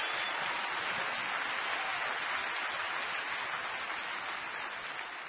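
A large congregation applauding in a big hall: dense, steady clapping that starts to die down near the end.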